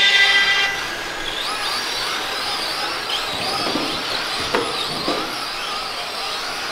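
A horn blast that fades out over the first second or two. It gives way to the high whine of several radio-controlled Tamiya model trucks' electric motors, wavering up and down in pitch with the throttle, with a few short knocks about four and a half and five seconds in.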